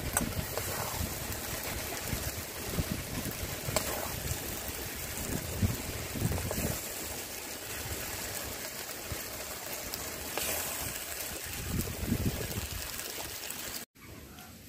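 Kalmi saag and fish-head curry cooking in a pan: a steady sizzle and bubbling, with a few sharp clicks as it is stirred. It cuts off suddenly near the end.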